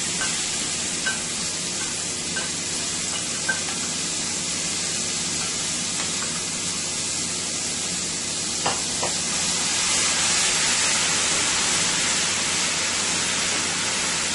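Wet curry masala sizzling in hot olive oil in a stainless-steel pot: the spices toasting in the oil, the first stage of the curry. A steady hiss, a little louder about ten seconds in, with a couple of faint clicks around nine seconds.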